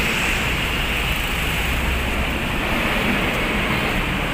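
Steady street traffic noise mixed with wind buffeting the microphone.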